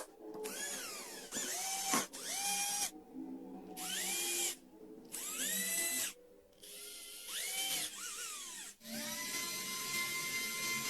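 A small electric power tool motor, drill-like, triggered in about six short bursts. Each burst spins up in a rising whine, holds briefly and then cuts off. Near the end it runs for a few seconds at a steady pitch.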